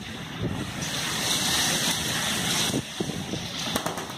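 Storm wind gusting through heavy rain, buffeting the microphone. The gust swells about a second in and eases after the middle.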